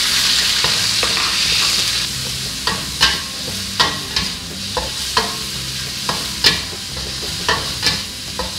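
Pork pieces sizzling in hot oil in a wok, the hiss loudest in the first two seconds. From about three seconds in, a metal spatula stirs the pork, clacking and scraping against the wok once or twice a second.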